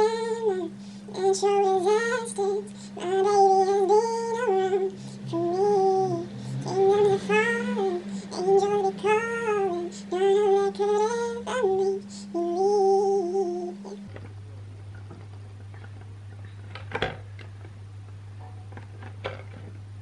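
A woman singing a slow melody in short, gliding phrases, close to the microphone, over a steady low hum. About fourteen seconds in the voice stops, leaving the hum and a few soft clicks of keyboard keys being pressed.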